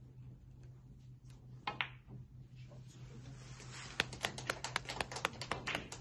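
Snooker balls: two sharp clicks as the cue strikes the cue ball and it hits the black, which is potted. About two seconds later comes a short patter of applause from a few spectators, about eight claps a second for two seconds.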